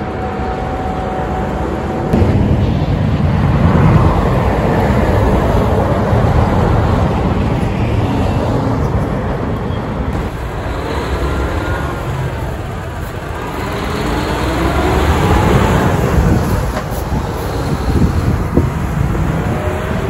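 Heavy diesel trucks and tractor-trailers passing close by, with engine rumble and tyre noise on the road. The sound gets louder suddenly about two seconds in.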